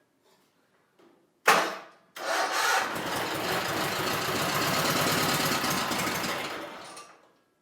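Freshly rebuilt Kohler KT17 Series 2 twin-cylinder engine of a John Deere 317 garden tractor starting and running for about five seconds before dying away near the end. A short loud burst comes about a second and a half in, just before it catches.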